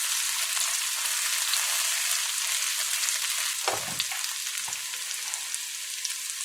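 Onions, garlic, pepper and scallion sizzling and crackling in hot oil in a frying pan, with a short knock about four seconds in.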